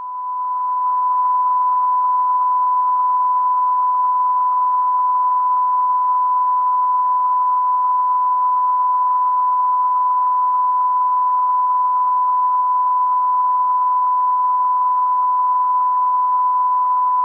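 Television close-down test tone: one steady, unbroken beep at a single pitch, swelling in over the first second, with a faint hiss around it.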